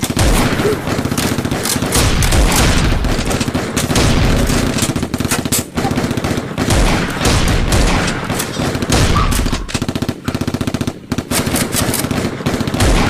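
Sustained rapid gunfire, machine-gun bursts and volleys of shots over a heavy low rumble, with a brief lull about halfway through.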